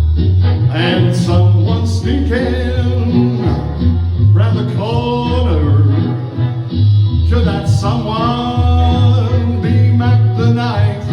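Swing-style band music with a steady bass line changing note about twice a second, and a gliding melody line above it carried without words.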